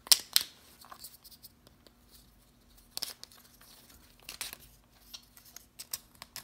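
Hard plastic clicks and rustling from an ear muff and helmet being turned over and fitted by hand, with a couple of sharp clicks at the start and another about three seconds in and softer fiddling between.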